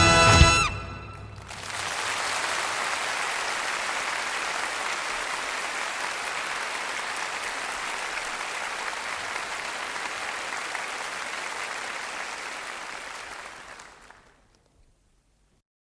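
Music from a full orchestra stops abruptly about half a second in. A live concert audience then applauds steadily for about twelve seconds, and the applause fades away near the end.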